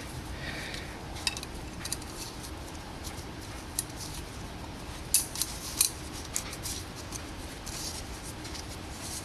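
Small handling noises from the new oil filter kit and its packaging: scattered sharp clicks, snaps and crinkles, loudest in a cluster of snaps around the middle.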